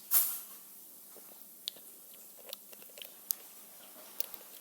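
Someone tasting a fizzy drink: a short, loud sip right at the start, followed by faint, scattered mouth clicks and swallowing.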